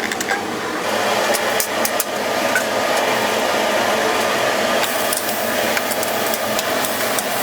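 Steak sizzling on a hot griddle: a steady hiss, with a few sharp clicks of metal utensils.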